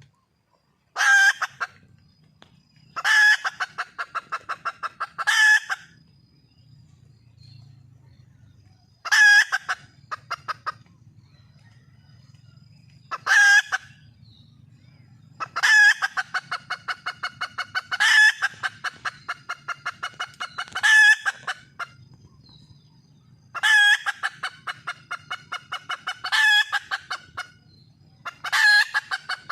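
Wild junglefowl hen calling for a mate: a string of cackling bouts, each a loud first note followed by a quick run of shorter clucks that fade away, repeated every two to four seconds.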